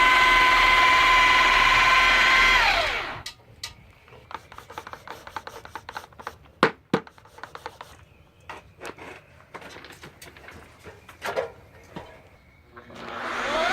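Handheld electric power tool running at a steady high-pitched whine, then winding down about three seconds in. Scattered light clicks and taps follow. Near the end the motor spins back up to speed.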